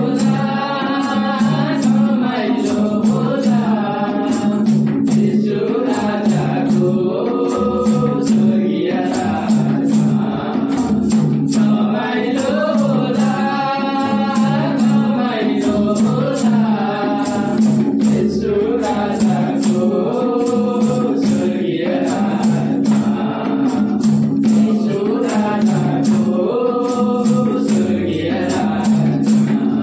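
A group of men singing a Nepali Christian hymn together in unison, in phrases of a few seconds each. They are accompanied by strummed acoustic guitar and two-headed madal hand drums. A tambourine and hand claps keep a quick steady beat.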